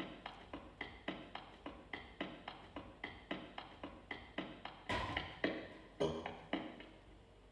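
Percussive music: quick, evenly spaced wood-block-like taps with a light ringing tone, about four a second, with a few heavier, fuller hits about five and six seconds in.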